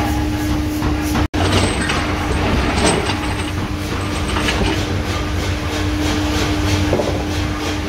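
Steady machine noise of a forging shop: a constant hum over low rumble and irregular rattling, with a few light metallic clinks as forged steel clutch-gear blanks are set on a steel turntable. The sound cuts out for an instant about a second in.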